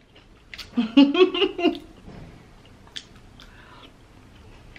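A short voiced sound from the eater about a second in, then quiet eating sounds: a few sharp clicks of a plastic utensil and soft chewing as a forkful of salad is eaten.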